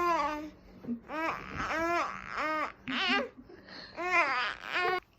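A 15-week-old baby cooing and babbling: a run of about five short vocal sounds, each rising and falling in pitch.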